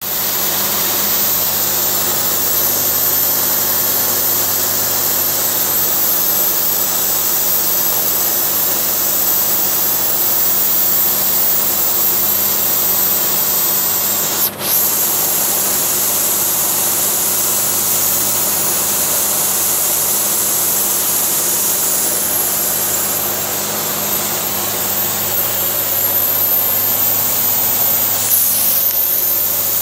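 Steady engine and propeller drone of a small aircraft heard inside the cabin, a constant low hum under a loud rush of air, briefly broken once about halfway through.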